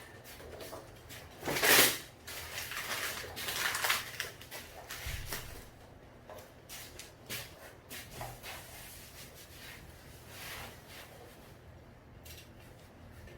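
Hand-work handling noises: scattered clicks and rustling scrapes, with one louder rasping burst a little under two seconds in.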